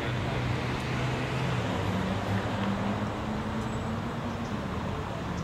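Street traffic: steady road noise with a passing vehicle's engine hum that rises in pitch about two seconds in and fades out near the end.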